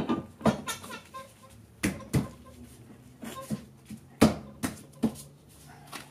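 Irregular metallic clinks and knocks, about nine in all, the loudest a little over four seconds in, as a bolt and steel spring-mount hardware are handled and fitted at a golf cart's rear leaf spring.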